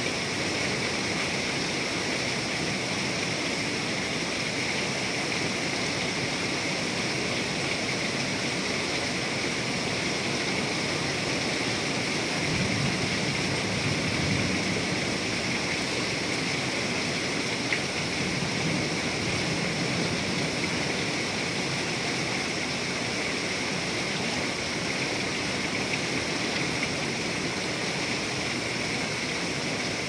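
Heavy thunderstorm rain pouring steadily, with a low swell a little under halfway through and a single sharp tick a little past halfway.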